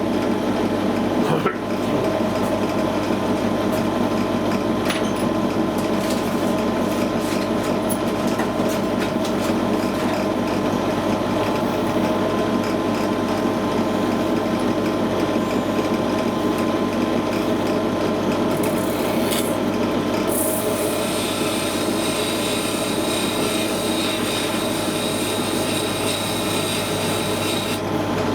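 Record Power DP16B bench drill running with a small sanding disc in its chuck: a steady motor hum. A higher-pitched whine joins about twenty seconds in.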